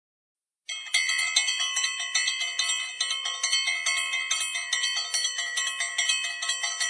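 A handheld puja bell rung rapidly and continuously, several strikes a second. It starts abruptly a little under a second in, after dead silence.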